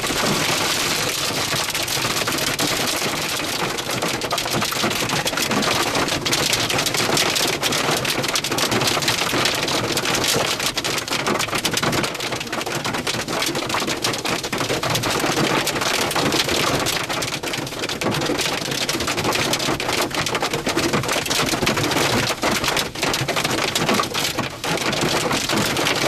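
Wind-driven rain and hail hitting the roof and windshield of a Ford Expedition, heard from inside the cabin: a steady, dense clatter of countless hits.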